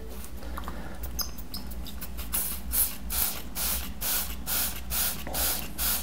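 Trigger spray bottle squirted again and again onto paper towels: after a couple of seconds of faint handling clicks comes a rapid run of short sprays, about three a second.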